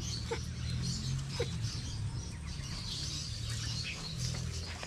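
Outdoor background: scattered faint bird chirps over a low steady hum, with a couple of brief small sounds in the first second and a half.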